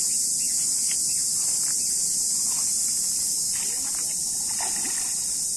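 Steady, high-pitched chorus of insects, droning without a break.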